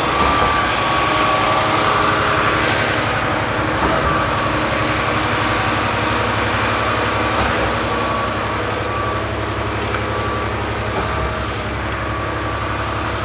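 Concrete pump truck's engine running steadily: a constant drone with a thin whine over it.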